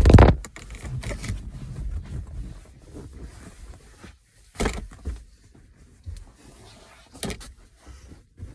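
Knocks, rustling and phone-handling noise from someone clambering from the back seat to the front seat inside a car. A loud knock comes right at the start, then smaller knocks about halfway and near the end.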